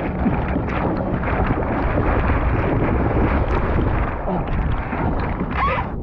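Seawater splashing and rushing around a surfboard-mounted camera as a surfer paddles through the surf, his arm strokes churning the water. It is a continuous, loud wash of splashes.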